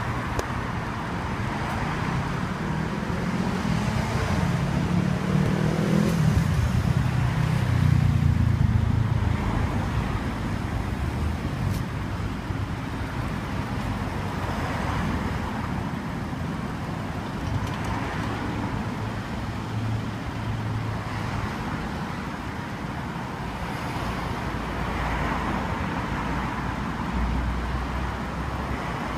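A car engine running amid street traffic noise. The engine swells louder between about four and nine seconds in, then settles to a steadier, lower rumble.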